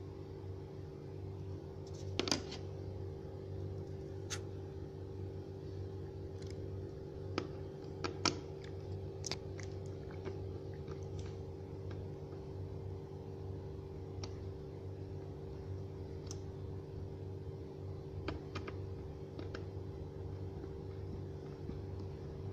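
Keys of an ASUS X453M laptop keyboard pressed one at a time, giving sparse, irregular clicks over a steady low hum.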